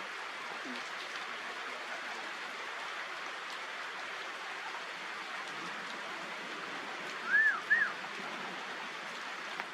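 Steady hiss of falling rain, with two short, high, arching calls in quick succession about seven and a half seconds in.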